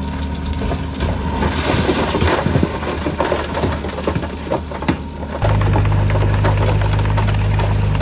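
Diesel engines of heavy earthmoving machinery running, with scattered knocks and clatter over the first few seconds. About five seconds in, the sound switches abruptly to a louder, steady engine hum.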